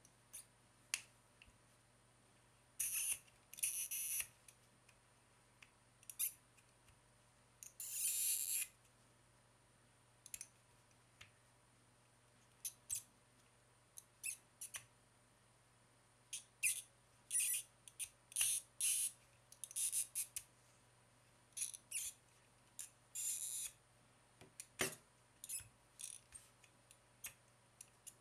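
Plastic segments of a Rubik's Snake being twisted by hand: irregular sharp clicks as the wedges turn and snap into place, with short scratchy stretches as segments rub against each other, and a duller knock near the end.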